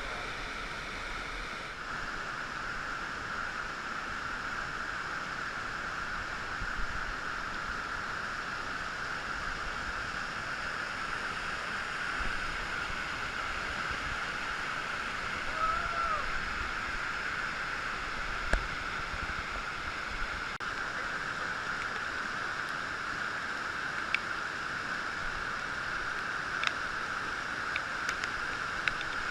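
Steady rush of a river running over rapids at a medium-high flow, heard from a kayak. A few short knocks come in the second half.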